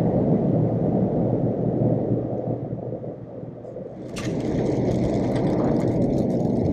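Road and drivetrain noise inside the cab of a moving Toyota Tacoma pickup: a steady low rumble. About four seconds in, a knock sets off a run of small clicks and rustling over the drone.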